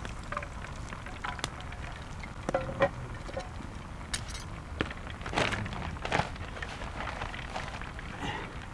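Walleye fillets frying in hot oil in a pan over a campfire: a steady sizzle with irregular crackles and pops, a few louder pops about three seconds in and again between five and six and a half seconds in.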